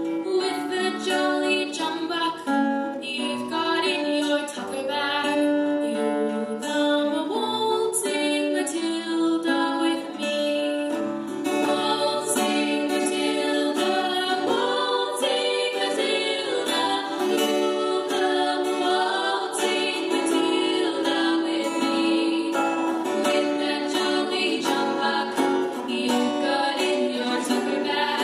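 A group of girls singing a song to an acoustic guitar accompaniment.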